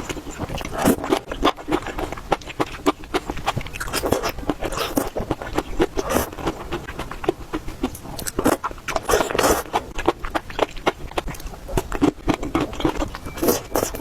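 A person chewing and biting food, a dense run of quick clicks and crunches with a few louder bursts.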